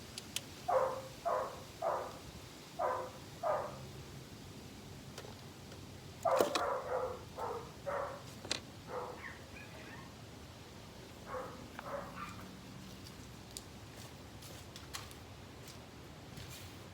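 A dog barking in three runs, five barks in the first few seconds, a longer run a few seconds later, and a shorter one near the middle. A few faint sharp clicks fall between the runs.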